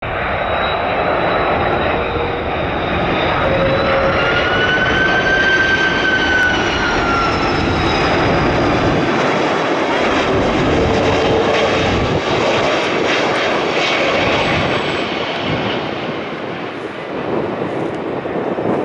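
Airbus A330 twin-engine jet airliner on its landing approach, its engines running loud and steady with a whine that bends up and then down in pitch in the first half. The sound eases slightly near the end.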